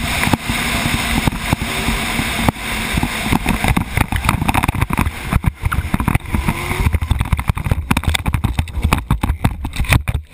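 Racing motorcycle at speed heard from the rider's helmet camera: engine running under heavy wind rush on the microphone. About seven seconds in the wind noise falls away and a rapid jumble of knocks and scrapes follows as the rider crashes and tumbles off the bike.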